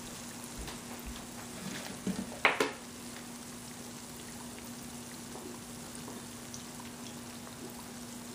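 Batata vadas, gram-flour-coated potato balls, frying in hot oil in a small karahi: a steady sizzle under a faint low hum, with one sharp knock about two and a half seconds in.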